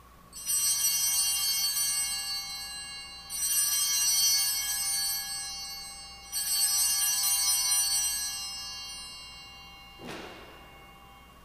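Altar bells rung three times during the elevation of the chalice at the consecration. Each shimmering ring fades over a few seconds before the next. A brief soft rustle comes near the end.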